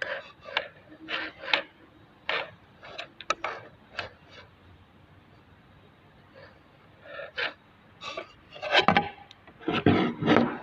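Irregular short scraping and rubbing strokes with a few sharp clicks among them, growing louder over the last couple of seconds.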